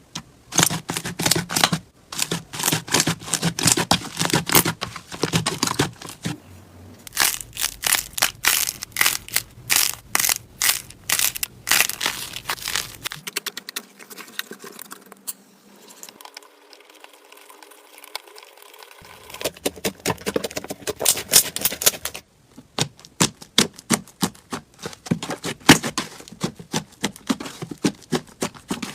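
Slime being squeezed, poked and stretched by hand, making rapid sticky clicks, pops and crackles in quick runs. The sound is quieter and softer for several seconds about halfway through.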